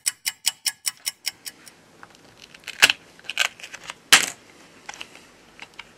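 Rapid, even ticking, about five ticks a second, that fades out within the first two seconds, followed by a few scattered hard clicks and taps of tools on the phone, the loudest about three and four seconds in.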